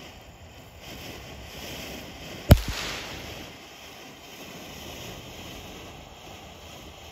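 Ground fountain firework spraying sparks with a steady hiss, and one sharp, loud bang about two and a half seconds in.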